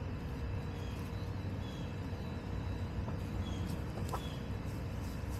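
Backyard hens giving an occasional short cluck over a steady low rumble, with faint high chirps from small birds repeating throughout.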